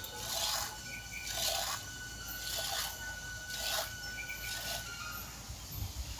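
Cow being milked by hand into a steel bowl: jets of milk squirt into the metal bowl as short hissing spurts, about one a second.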